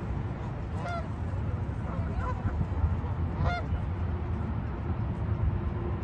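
Canada geese honking: two short, clear honks about two and a half seconds apart, with a fainter call between them, over a steady low background rumble.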